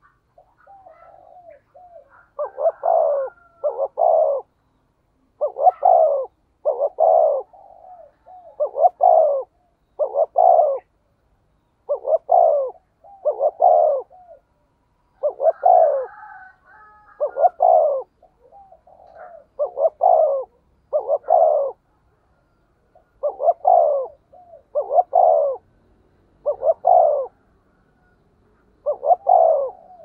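Caged decoy spotted dove cooing: a long series of loud coos, about one every second and a half, with softer, shorter notes in between.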